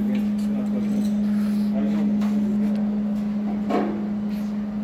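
A steady, even hum, with faint voices and a few light clicks in the background.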